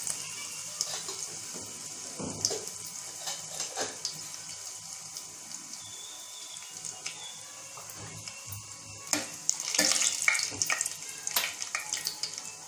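Cumin seeds, mustard seeds and dry red chillies frying in hot oil: a steady sizzle with scattered crackles, louder for a couple of seconds about nine seconds in.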